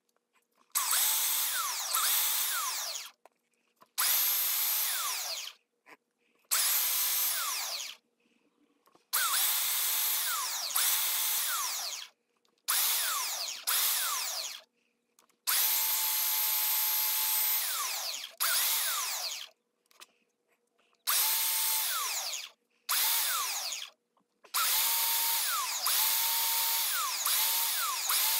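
Skil belt sander running upside down on the bench, grinding the edges of a purpleheart hardwood spinner blank pressed against the moving belt. The noise comes in about a dozen bursts of one to three seconds, each starting and stopping sharply, with near-silent gaps between.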